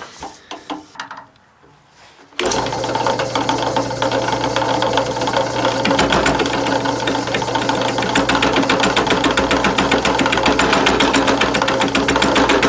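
Drill press starts up about two seconds in, and its homemade single-point fly cutter cuts the face of a cast-iron steam engine cylinder casting: a loud, fast, even rattle over a steady motor hum.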